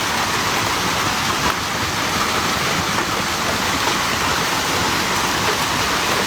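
Hailstorm: hail and heavy rain pelting down in a steady, dense roar.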